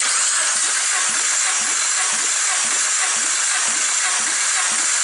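Hyundai 1.4-litre G4FA four-cylinder engine being cranked over for a compression test on cylinder one: a loud, steady rushing hiss with a regular pulse about three times a second.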